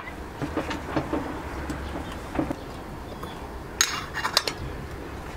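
Metal lid of a stainless steel teapot clinking as it is set on the pot, a quick cluster of sharp clinks about four seconds in, after lighter taps and handling sounds as leaves go into the pot.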